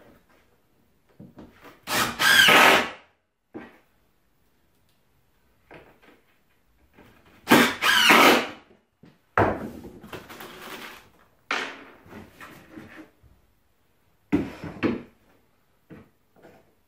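Cordless drill-driver running in short bursts, backing screws out of small wooden blocks screwed to a plywood bulkhead, with knocks of the wood as the blocks come loose. About five bursts, the ones near 2 s and 8 s the loudest.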